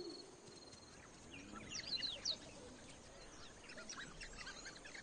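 Faint high-pitched twittering chirps from African wild dogs: a cluster of quick rising and falling squeaks about two seconds in, then scattered softer ones.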